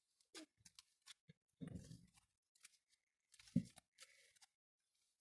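Cloud slime being worked in the hands: faint crackling and clicking, with two soft thuds, about a second and a half and three and a half seconds in.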